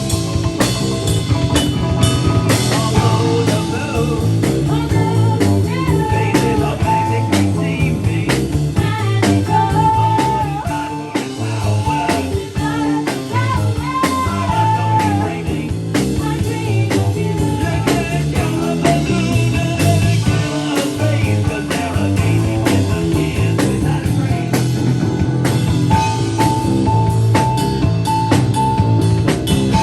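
A rock band playing: drum kit keeping a steady beat under electric guitar, with a held melody line on top.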